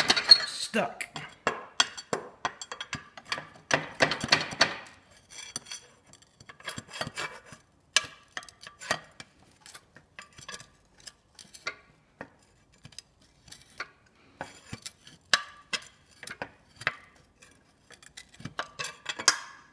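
Flat steel pry bar clinking and scraping against the outboard's gear case housing at the seam below the midsection, in irregular short knocks and scrapes, with a denser rattle near the end, as the stuck gear case is pried at without coming free.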